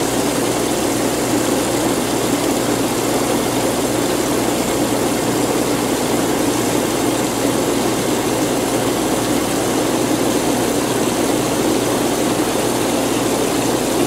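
Garden hose pouring water into the open strainer pot of a pool pump: a steady splashing gush as the pot fills, refilling it so the pump can catch prime. A low steady hum runs underneath.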